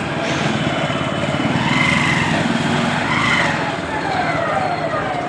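Motorcycle riding in traffic: steady engine and road noise.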